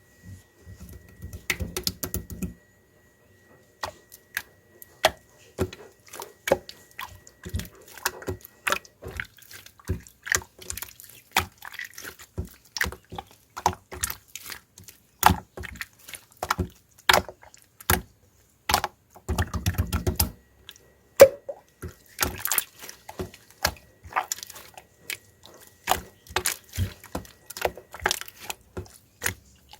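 Slime being squeezed, kneaded and mixed by hand, giving irregular sticky clicks and small air-bubble pops, several a second. Twice, briefly, a low rumble of handling comes in.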